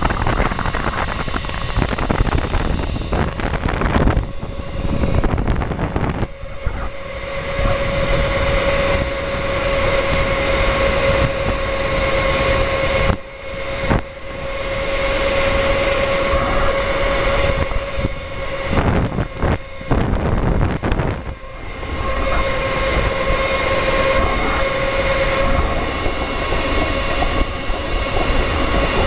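Electric go-kart driven by two 48 V, 1,000 W motors running under power, a steady mid-pitched motor whine over wind and tyre rumble. The sound dips briefly a few times around the middle and picks back up.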